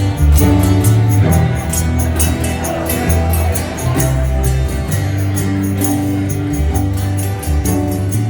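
Live acoustic rock band playing an instrumental passage between sung lines: strummed acoustic guitars and low bass notes over a steady jingling percussion beat.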